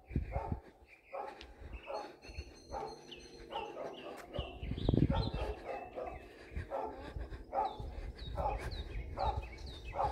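A dog barking over and over, roughly one bark a second.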